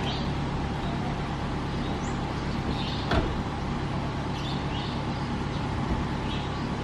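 Daihatsu delivery van's engine idling steadily, with the driver's door slammed shut about three seconds in.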